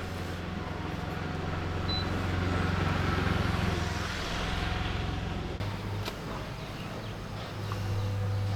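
A motor vehicle's engine running with a steady low hum, growing louder around the middle and again near the end. Its pitch shifts a little over halfway through.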